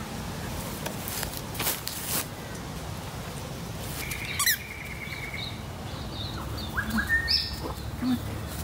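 Border collie biting a squeaky tennis ball, giving short high squeaks: one held squeak with a quick pitch slide about halfway through, then several shorter squeaks near the end.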